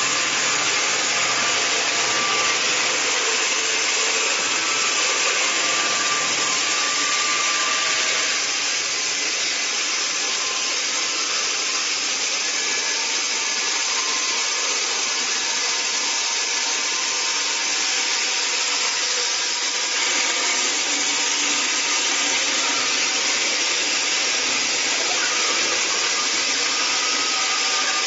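MJ1600E horizontal band sawmill's blade cutting lengthwise through a large log, a steady, hissing sawing noise with the machine running underneath, easing slightly about eight seconds in.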